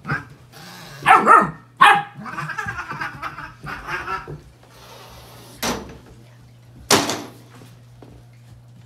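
German Shepherd puppy barking and yipping while play-fighting with a cat: two loud barks about a second in, then a run of smaller yips and noises, and two more sharp barks later on.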